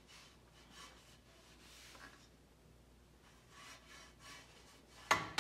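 Towel rubbing and scrubbing along a metal dirt bike exhaust pipe in soft repeated strokes, wiping off rust loosened by rust remover. A sudden louder sound comes near the end.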